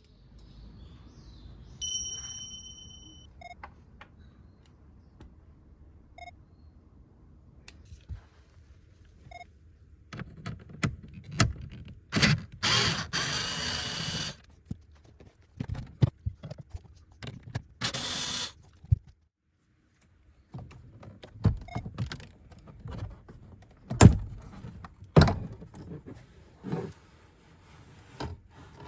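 Irregular clicks, knocks and rattles of hands and tools working on car interior trim, with two short noisy bursts of a second or two near the middle.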